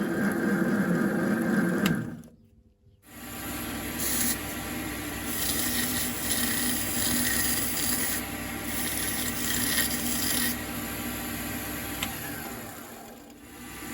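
Power tool working metal: a steady motor hum, with stretches of high hissing as the metal is cut. The sound breaks off sharply about two seconds in and picks up again a second later.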